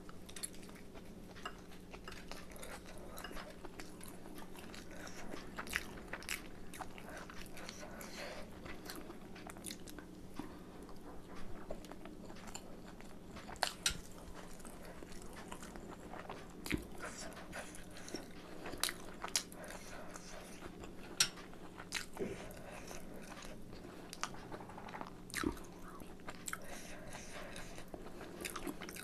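Close-up chewing and biting of chicken momo dumplings, with wet mouth clicks and smacks at irregular moments. A faint steady hum runs underneath.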